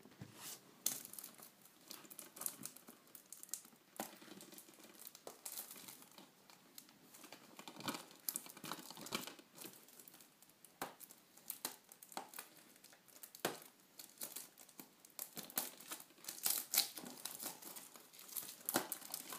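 Plastic shrink-wrap being picked at and peeled off a Blu-ray case: faint, irregular crinkling and crackling of the film, with the odd tearing sound.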